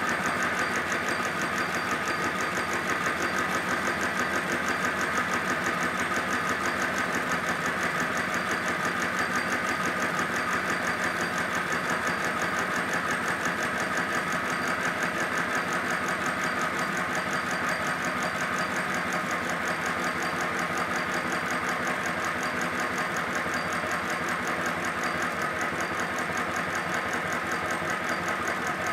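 5-inch gauge live-steam model of the Lion locomotive running free on the bench, its wheels spinning: a steady, rapid, even beat of exhaust and motion. The gas burner is off, so it runs on the boiler's stored steam alone.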